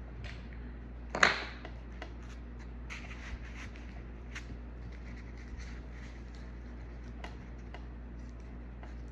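Small taps, clicks and rustles of laptop parts and tools being handled on a work surface, with one sharp, louder clack about a second in, over a steady low hum.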